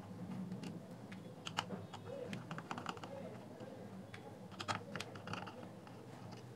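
Faint, scattered small clicks and ticks of a hand screwdriver turning small screws out of a plastic speaker housing, with screws set down among others on a table, over a faint steady low hum.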